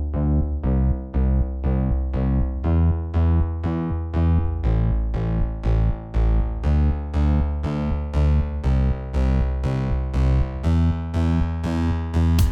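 Background music: synthesizer keyboard notes struck in an even rhythm of about two a second, each fading quickly, over a bass line.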